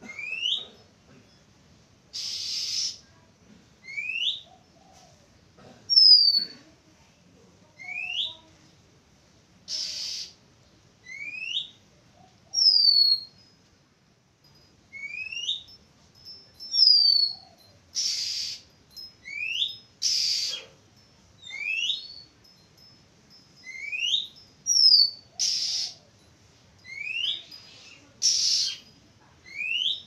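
Oriental magpie-robin calling: clear rising whistles every few seconds, mixed with higher falling whistles and, several times, short harsh rasping notes.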